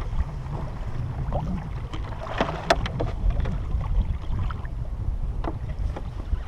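Wind buffeting the microphone on a kayak in choppy sea, a steady low rumble, with a few sharp clicks of fishing gear being handled, a cluster about two and a half seconds in and one more near the end.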